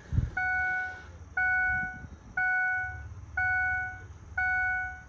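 The cab warning chime of a Ford Super Duty with the key in and the engine not yet running: a single bell-like tone repeating about once a second, each ringing briefly and fading. There is a dull thump just after the start.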